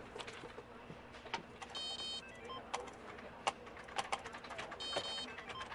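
Computer keyboard typing and mouse clicks, broken twice, about three seconds apart, by a short buzzy electronic beep as the office computer crashes to a blue error screen.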